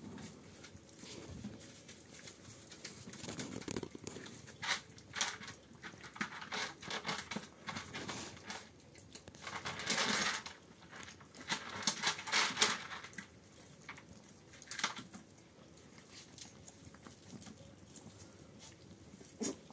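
A month-old Shiba Inu puppy scuffling on a rug while nosing and mouthing a whole fish: irregular soft scuffs, clicks and rustles, busiest in the middle and quieter near the end.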